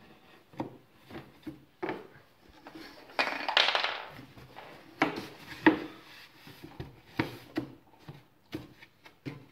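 Wooden dollhouse panels being handled and fitted together: an irregular string of sharp knocks and clatters of wood on wood, with a rough scraping rub lasting about a second just after three seconds in.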